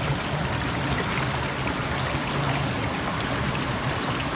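Stream water rushing and trickling steadily through a rocky gorge.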